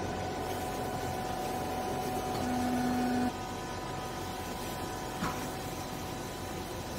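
Vertical hydraulic clothes baler's motor and hydraulic pump running with a steady hum. A louder tone builds for about a second and cuts off suddenly a little over three seconds in, and a single knock comes about five seconds in.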